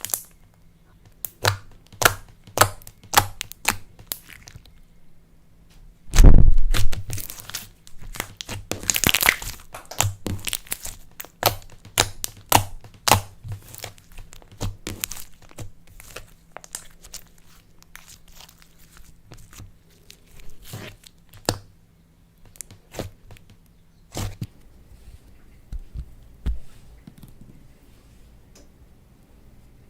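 Clay slime worked by hand, giving irregular sticky crackles, pops and tearing sounds as it is squished and stretched, with one louder thud about six seconds in. The crackling thins out to scattered faint clicks in the last few seconds.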